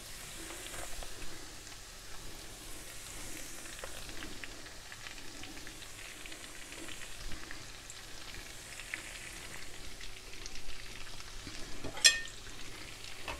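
Garlic and herbs frying gently in oil in a frying pan, a faint steady sizzle with light crackles as large black tiger prawns are laid into the pan. A sharp click about twelve seconds in.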